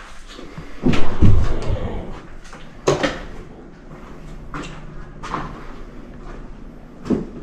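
A few knocks and thumps in a room, the heaviest a deep thud about a second in, then lighter sharp knocks about every two seconds.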